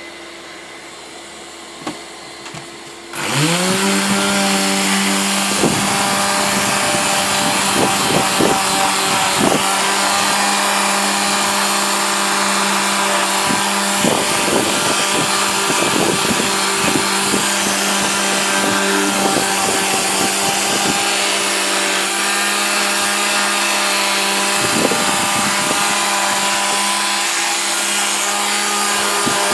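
A hand-held air tool used for stripping paint: its motor spins up with a rising whine about three seconds in, then runs steadily with a rushing of air. Scattered clicks and scrapes are heard as old paint lifts off the wooden door.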